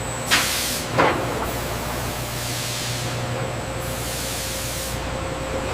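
Steady spraying hiss over a low, steady machine hum, with two short, louder spurts of spray in the first second or so.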